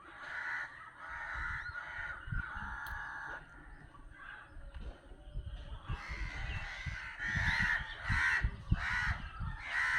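Birds squawking: overlapping harsh chatter at first, then from about halfway a string of loud harsh calls, a little under one a second.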